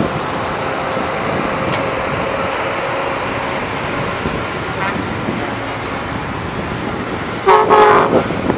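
A horn sounds once near the end, a short toot of about half a second, over a steady wash of wind and distant earthmoving machinery.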